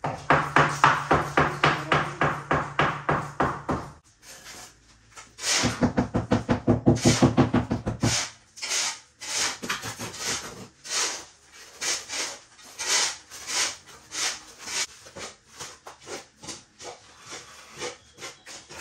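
A hand trowel scraping and rubbing over a wet concrete countertop in quick back-and-forth strokes, about four a second at first. After about eight seconds the strokes become slower and irregular as the surface is smoothed.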